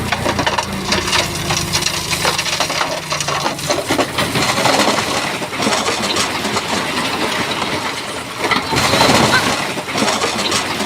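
Big stones clattering, knocking and grinding against each other as a Shantui bulldozer pushes them, a dense, irregular run of sharp knocks. The dozer's diesel engine hums underneath for the first few seconds.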